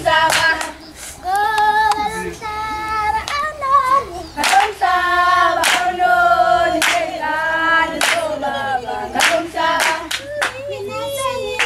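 Children's choir singing long, held notes with vibrato, with sharp hand claps about once a second through most of it.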